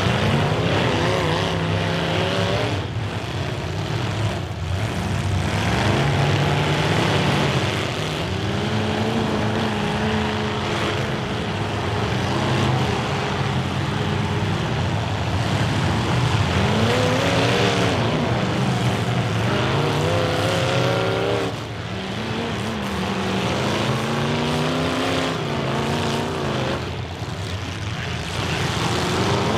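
The engines of several full-size demolition derby cars running and revving at once, their overlapping pitches rising and falling as the drivers accelerate and back up across the arena.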